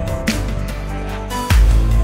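Background music: held synth-like notes over a steady low bass, with a deep bass hit about one and a half seconds in.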